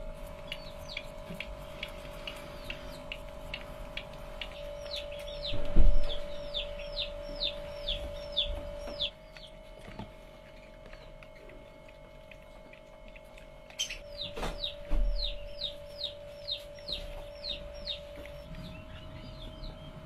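Baby hedgehogs squeaking: a long run of short, high, falling peeps, about two a second, that pauses for several seconds in the middle and then starts again. A steady hum lies underneath, with a couple of dull thumps, the loudest about six seconds in.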